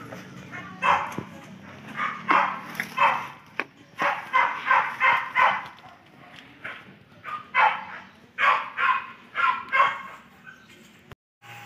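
A dog barking repeatedly, in short runs of barks with pauses between them.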